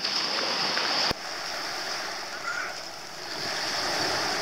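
Shallow sea water washing and lapping at the shoreline, a steady hiss. A sharp click about a second in, after which it is a little quieter.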